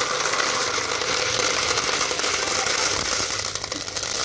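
Glass marbles pouring from a plastic jar into a plastic bucket of marbles: a steady, dense clatter of glass on glass and plastic.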